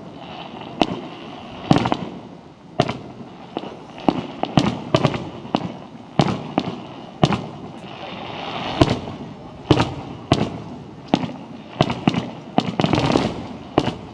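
Display fireworks bursting in quick succession: sharp bangs at irregular intervals, more than one a second, some running into brief crackling clusters.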